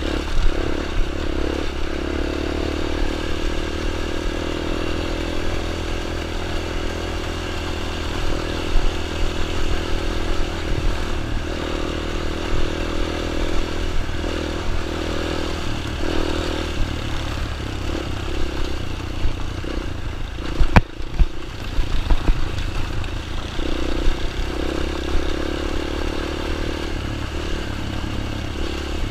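Small dirt bike engine running with a steady note that fades briefly several times. A single sharp click about twenty-one seconds in.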